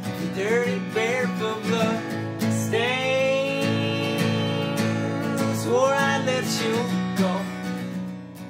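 Acoustic guitar strummed under a man and a woman singing together; about three seconds in the voices hold one long note for nearly three seconds.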